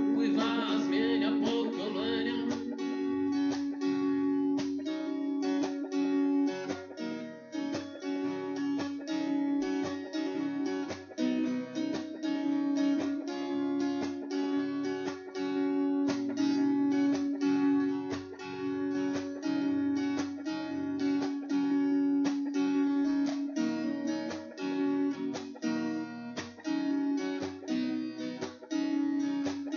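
Acoustic guitar strummed in a steady rhythm, the chords ringing between strokes.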